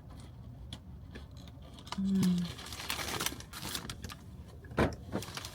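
Rustling and crinkling of a bread bag with scattered small clicks, a brief low hum about two seconds in and a single knock near the end.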